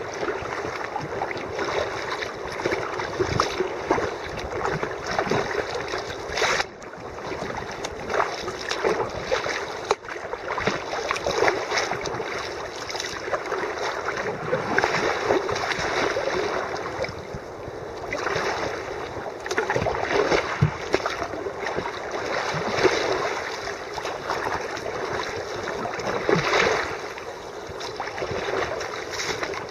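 Choppy sea water splashing and rushing against a sea kayak's hull, in uneven surges as the waves pass under the boat.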